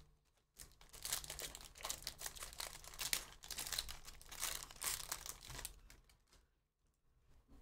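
Foil wrapper of a Bowman Draft Jumbo baseball card pack being torn open and crinkled by hand. The irregular crackling starts about half a second in and fades about six seconds in, with faint rustling near the end.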